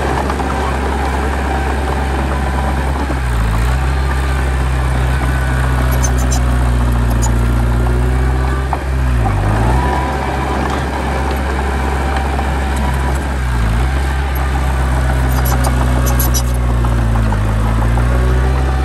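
Heavy earthmoving machine's diesel engine running steadily, its pitch dipping briefly and recovering every few seconds as the load comes on and off, with faint metallic clinks twice.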